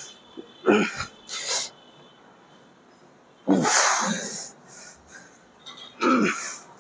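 A man breathing out forcefully through his mouth with the effort of each rep of a cable chest fly: four short, sharp exhalations, spaced irregularly about one to three seconds apart.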